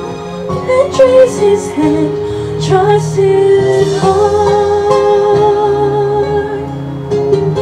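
A young woman singing a slow worship song into a handheld microphone over instrumental accompaniment, holding one long note through the middle.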